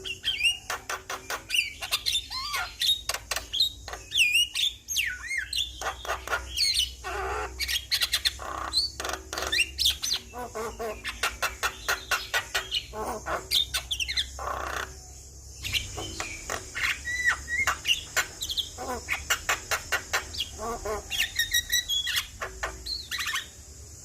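Javan myna singing continuously: a rapid, varied stream of chattering clicks and whistled notes that bend up and down in pitch.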